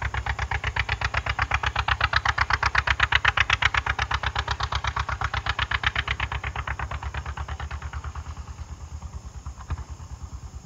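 1950 John Deere Model A's two-cylinder engine running with an even, rapid beat of exhaust pulses. It grows louder to a peak about three seconds in, then fades as the tractor moves away.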